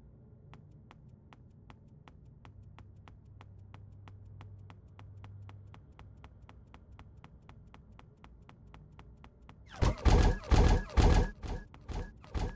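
Steady, even ticking, about two and a half ticks a second, over a faint low hum. About ten seconds in, loud heavy thuds begin, about two a second, and keep going.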